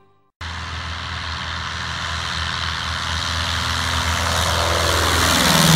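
Lycoming O-235-C four-cylinder engine and propeller of a Woodpecker homebuilt light aircraft running at high power, with a steady engine drone under a strong rushing hiss, growing steadily louder as the plane comes closer.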